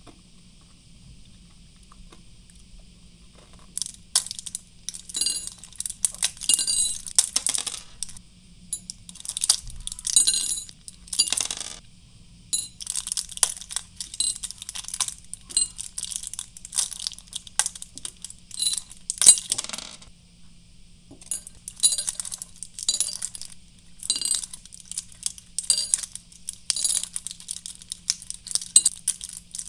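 Candy-coated chocolates being pushed one after another through the foil backing of a ring-shaped plastic blister pack: repeated crackling of plastic and foil, with small clicks as the candies drop onto a ceramic dish. It starts about four seconds in.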